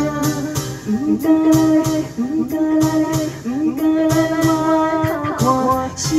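A woman singing through a handheld microphone, with long held notes, over amplified instrumental accompaniment with a steady beat.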